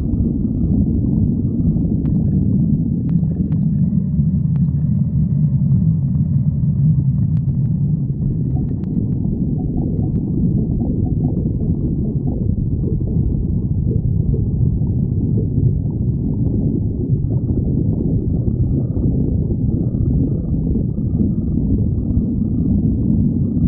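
A person's hungry stomach growling: a long, continuous low rumble.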